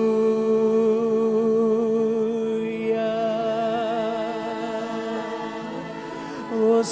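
Slow worship music: a voice holding a long sung note with a gentle vibrato over sustained accompaniment, with a short breathy hiss near the end.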